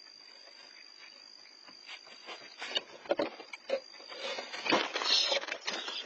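A steady high cricket trill at first. From about two seconds in come loud, irregular scratching, knocking and scuffling inside a wooden nest box as a raccoon claws in through the entrance hole after the nesting bird.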